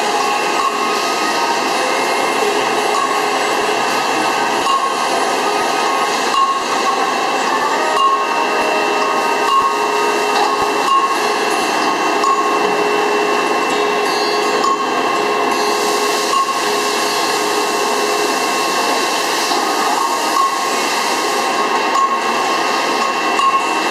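BEMATO BMT 1300NCT NC radial drilling machine drilling a steel ring: a steady whine from the spindle drive over the hiss of the bit cutting steel under coolant, with a few faint clinks.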